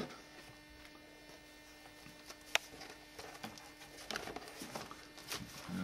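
Faint handling of a ring-binder album of papers and photographs: one sharp click a little over two seconds in, then soft rustles and taps as pages are lifted and turned, over a steady low hum.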